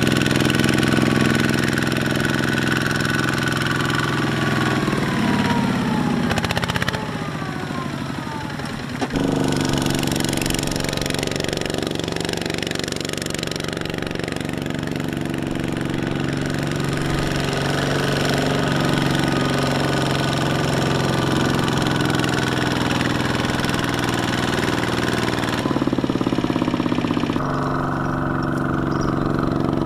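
Single-cylinder diesel engine of a Kubota ZT140 walking tractor running steadily while it hauls a loaded trailer through a wet paddy. A few seconds in, its pitch falls for a moment before it steadies again.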